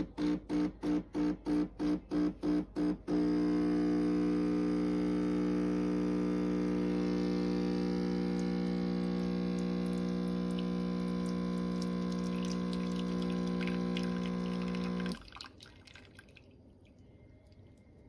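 ILAVIE 20-bar espresso machine's vibration pump pushing water through the coffee. It pulses in short bursts about three times a second during pre-infusion, then hums steadily through the extraction, and cuts off sharply about fifteen seconds in.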